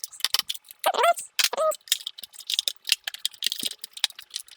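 Quick plastic clicks and taps from hands working on a GoPro Karma drone's plastic body and wiring as a wire is pressed down into its slot.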